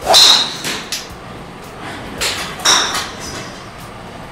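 A PING G410 LST driver head striking a golf ball off a tee: one sharp, loud metallic crack with a brief high-pitched ring, a sound that is called distinctive and impressive. About two and a half seconds in come two more similar sharp club strikes with a high ring.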